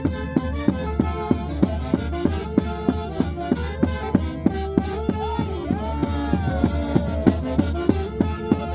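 Instrumental band music with a steady, quick percussive beat under sustained melody lines. A few sliding notes come in about six seconds in.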